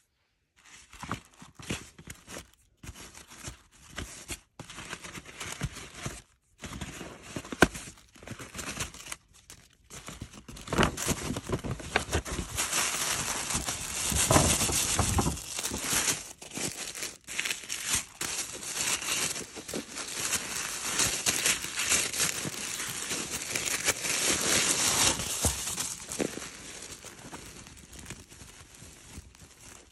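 Paper packaging and a shopping bag rustling and crinkling as they are handled and unpacked, with scattered taps and knocks at first. The rustling becomes louder and more continuous from about eleven seconds in, then softens near the end as a cotton dust bag is handled.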